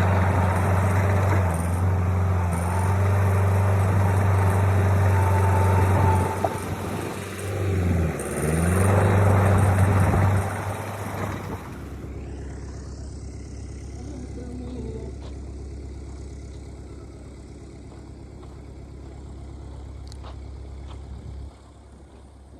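Heavy diesel machinery engine running with a steady low drone; its pitch dips and comes back up about eight seconds in. About twelve seconds in the sound drops abruptly to a quieter, duller engine hum.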